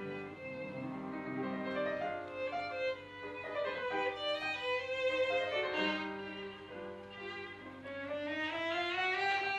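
Violin playing a slow, singing melody of long bowed notes, with a gradual upward slide in pitch near the end.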